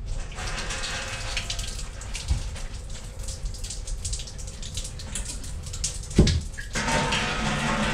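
Water left in a copper supply line pours and splashes onto the floor as the SharkBite push-fit fitting is pulled off the pipe. There is a single knock about six seconds in.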